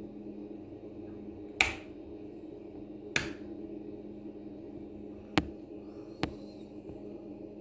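Steady hum of an egg incubator running, with four sharp clicks spread over several seconds, the first two a little fuller than the last two.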